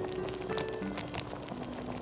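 Background music with slow held notes, over a light scattered crackle and bubbling from pork belly cooking in its own juices in a lidded pot.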